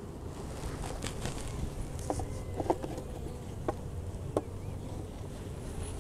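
Wooden hive frames clicking and knocking as a metal hive tool pries them loose and one is lifted out of the hive box: a few sharp knocks through the middle, over a steady hum of honeybees.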